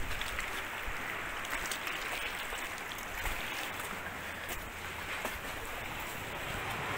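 Steady rush of sea surf on a rocky shore, mixed with wind.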